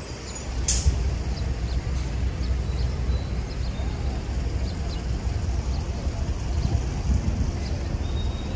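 Downtown street ambience: a steady low rumble of city traffic, with a short sharp high-pitched squeak about a second in and a few faint high chirps.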